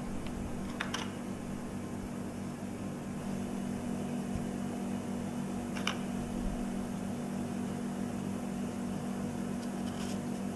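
Steady low hum of a running machine, with a few faint clicks: about a second in, near six seconds, and near the end. The clicks come from a knife and Oreo cookie pieces being handled over a small glass bowl while the cream filling is separated from the cookies.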